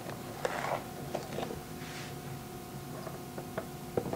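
Borax powder being scooped from a cardboard box and tipped into a glass beaker: a soft rustle about half a second in, then light clicks and taps.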